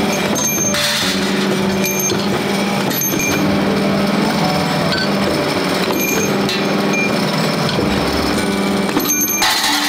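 Power press running with a steady hum while it cuts steel rod to length, with sharp metallic clanks at irregular intervals and brief bursts of hissing noise about a second in and near the end.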